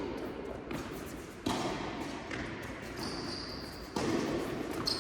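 Tennis ball struck by rackets in a rally: two sharp hits about two and a half seconds apart, each ringing on in the indoor hall.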